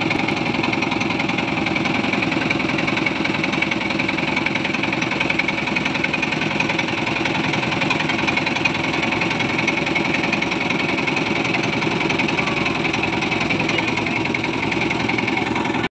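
Motorboat engine running steadily under way, a constant fast-pulsing chug.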